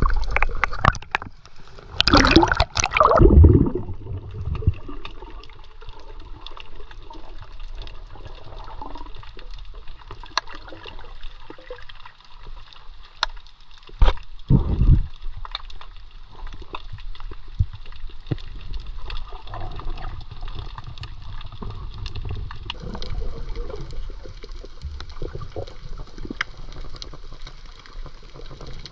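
Water gurgling and sloshing around the camera of a swimmer snorkelling along a reef edge, with louder gurgling surges about two seconds in and again about fourteen seconds in.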